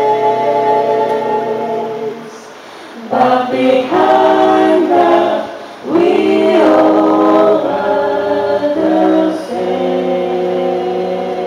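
Mixed male and female a cappella group singing a jazzy, bossa nova-style song through microphones: sustained close-harmony chords over a low bass voice. The singing drops softer about two to three seconds in, then the voices come back in fuller.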